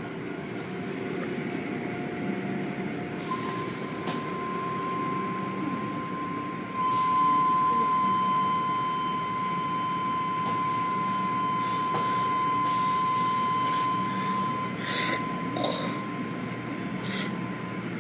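Automatic car wash tunnel machinery running, with water spraying and cloth curtain brushes working, under a steady high whine from about three seconds in until near the end. Two short, loud bursts of noise stand out near the end.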